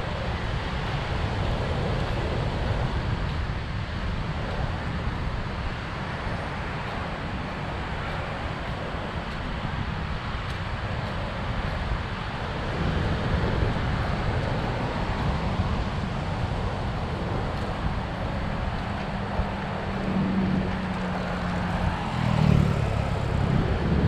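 Wind rumbling on the microphone over light road traffic, with a car's engine hum rising near the end as the car approaches.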